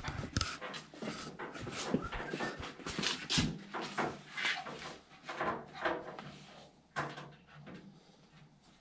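Handling noise of a steel pickup rear fender being carried and fitted against the bed side: scuffs, rustling and light knocks, busiest in the first few seconds, then tapering off.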